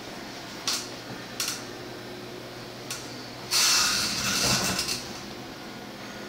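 Handling noise: light clicks about a second in and again half a second later, then about a second of crinkly rustling a little past the middle, over a faint low steady hum.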